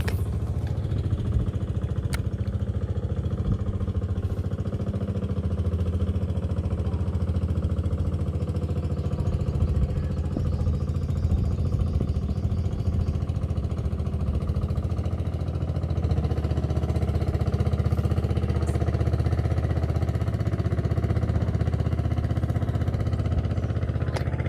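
A small engine running steadily at an even speed, a low drone that does not change.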